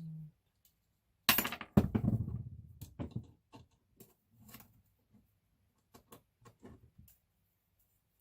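Metal clicks and clinks from a folding saw being reassembled by hand, its modified steel blade being fitted to the handle. About a second and a half in comes a loud knock with a short rattle trailing off, then scattered small clicks.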